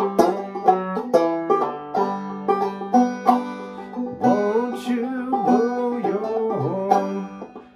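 Five-string Gold Tone banjo played clawhammer style in open G tuning (gDGBD): a quick run of plucked notes over a steadily ringing low G, with several notes sliding in pitch in the second half.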